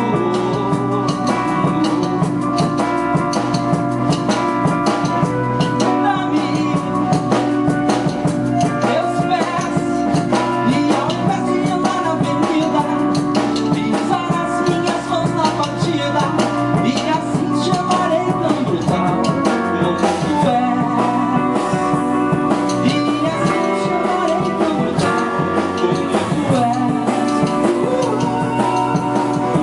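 A rock band playing an instrumental passage: electric guitar, keyboard, bass and drum kit, with no singing.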